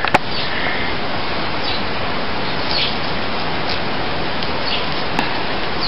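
A steady, even rushing hiss with a few faint bird chirps over it.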